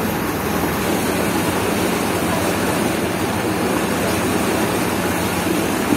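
Boat under way on a river: its engine running steadily beneath a continuous rushing noise.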